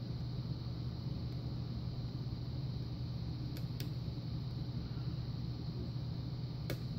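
A steady low hum, with a few faint sharp clicks from a pick working the pin tumblers of a brass pin-tumbler lock while single-pin picking.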